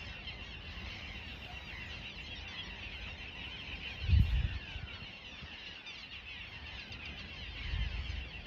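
A steady outdoor chorus of many high chirping calls, with a low rumble swelling about four seconds in and again near the end.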